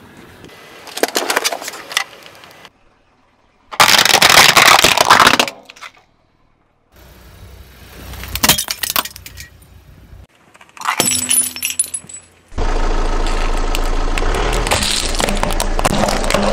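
A car tyre rolling over and crushing objects, among them a battery-powered LED string light and a row of disposable plastic lighters: bursts of cracking, crunching and breaking plastic. Several short bursts are separated by brief gaps of near silence, then a longer steady stretch of cracking over a low rumble runs through the last third.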